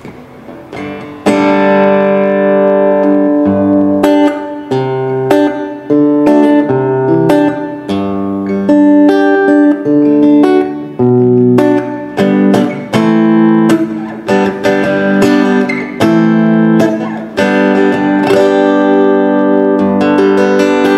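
Donner Hush I silent guitar with steel acoustic strings, heard through its Donner piezo pickup, playing a continuous pattern of plucked chords and ringing notes, starting about a second in.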